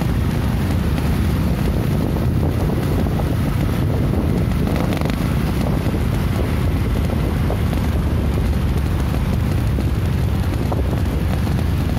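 Steady wind buffeting the microphone over the running noise of traffic on the move, with no single event standing out.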